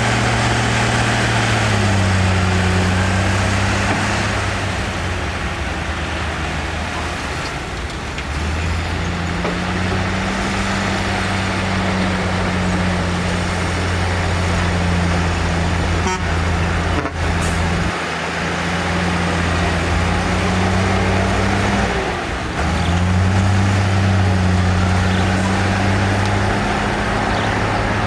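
Heavy diesel engine of an earthmoving machine running hard, over a dense rumble of machinery noise; its engine note shifts down and back up several times.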